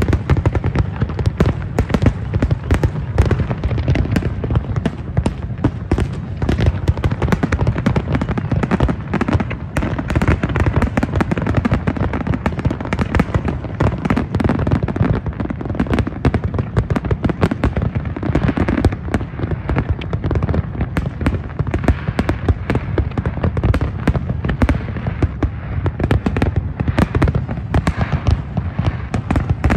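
Large fireworks display going off without pause: a dense, continuous barrage of bangs and crackling from many shells bursting one after another.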